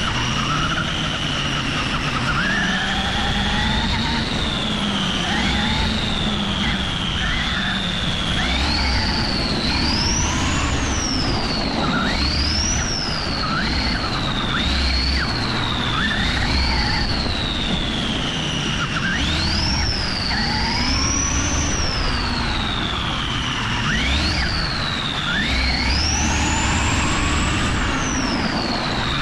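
Cison V8 model engine in an RC car running, revving up and down again and again, its high-pitched whine rising and falling every second or two over a steady low rumble.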